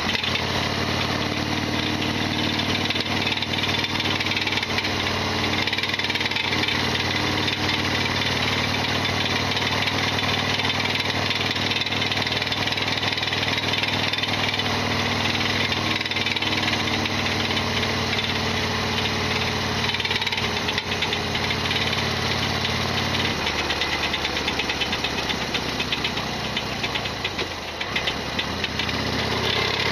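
Harley-Davidson XL1200R Sportster's air-cooled 1200 cc V-twin running on the road, with a loud mechanical rattling over the engine note: the bike's well-known abnormal noise. The engine note changes about two-thirds of the way in and dips briefly near the end.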